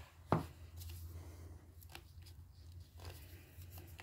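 Small parts being handled on a workbench during a chainsaw repair: one sharp click about a third of a second in, then a few faint scattered ticks over a steady low hum.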